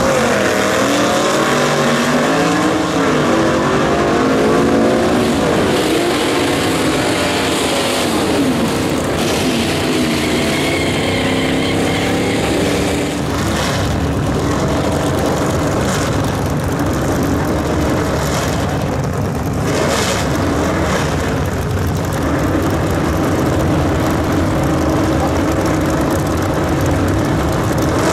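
Supercharged V8 engines of vintage gasser drag cars running loud at the starting line, the revs rising and falling repeatedly, with a few short sharp cracks later on.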